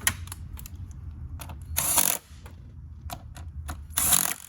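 Ratchet and 10 mm socket working the ignition coil bolts on a four-cylinder engine: scattered metal clicks and two short, loud rasping bursts about two seconds apart.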